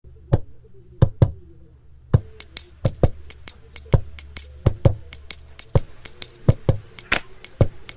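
Music: the intro of an acoustic reggae cover, sharp percussion clicks, a few scattered ones and then a steady beat of about three to four a second from about two seconds in, over a low hum.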